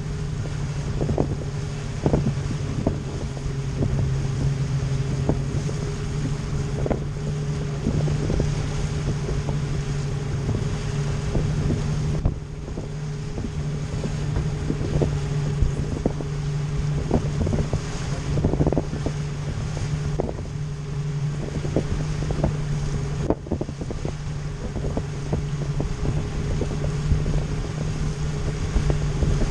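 Outboard motor running steadily as a boat trolls, a constant low drone, with wind buffeting the microphone and irregular knocks as the hull meets the chop.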